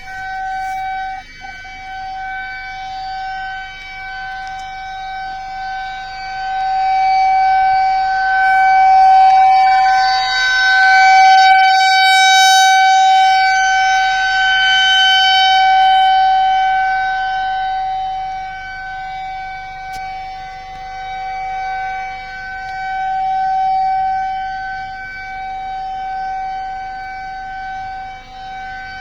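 Outdoor warning siren sounding a warning on one steady pitch with overtones. It swells louder and fades again in slow waves, loudest around the middle.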